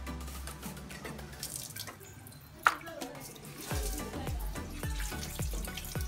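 Water running from a hose tap and splashing as raw pork is rinsed by hand, over background music. A single sharp knock comes a little before halfway, and a low, steady beat of about two thumps a second comes in just past halfway.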